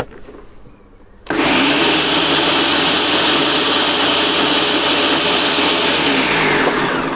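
Ninja Smart Screen Blender motor starts abruptly about a second in and runs steadily, blending mayonnaise with bacon for a final burst. It then switches off and winds down with a falling pitch near the end.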